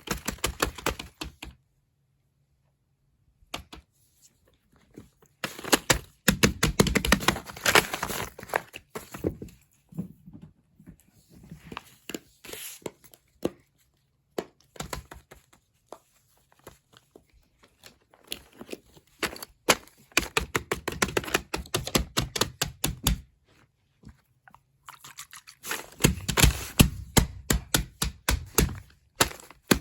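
Fidget toys and plastic being handled: bursts of rapid clicking and crinkling, with quiet pauses between the bursts.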